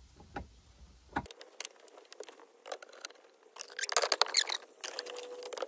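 Small plastic clicks, taps and scrapes as hands work the glove-box parts of a car dashboard, with a burst of quick clicks and squeaky plastic creaks about four seconds in.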